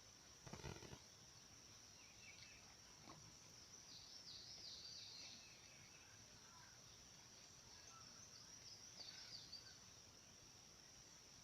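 Faint garden ambience: insects trill in a steady high drone throughout, and birds chirp in two short spells, around the middle and again near the end. There is a brief soft thump about half a second in.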